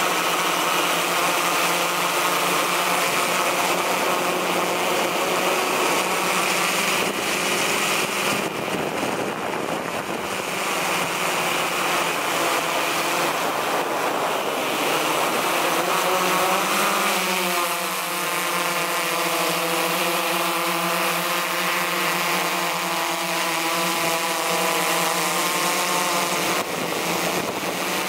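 Multirotor camera drone's motors and propellers whining steadily, the pitch shifting with its speed about seventeen seconds in.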